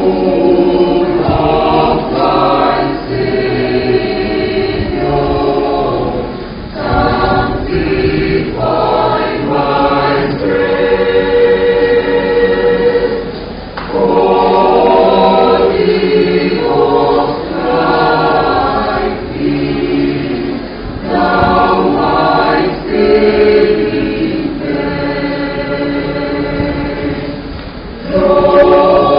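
Church choir singing, phrase after phrase, with brief breaks between phrases.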